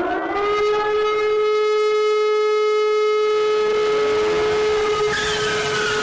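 Siren finishing its rise in pitch and holding a steady, loud tone rich in overtones. About five seconds in, a hissing noise with a falling whistle joins it.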